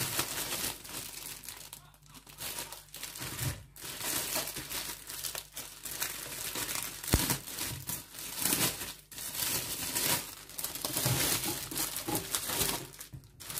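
Thin plastic produce bag crinkling and rustling in irregular bursts as hands open it and pull it off the eggplants, with a single sharp knock about seven seconds in.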